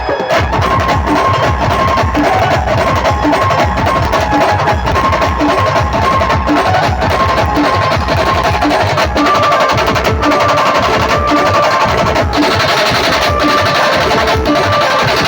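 Dhumal band playing loud: dense, fast drumming under a held, repeating melody line, with a regular light click about every half second.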